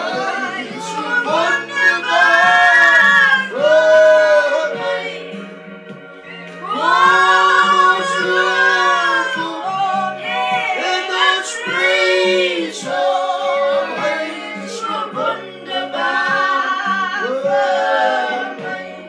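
A small family group of three, a man, a woman and a boy, singing together in sung phrases with long held notes.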